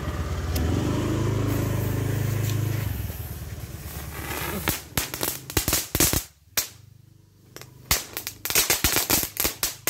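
Two small foil-wrapped firecrackers going off in a rapid series of sharp cracks and pops: a first run about halfway through, a short pause, then a denser run near the end. A low motor-vehicle hum fills the first few seconds.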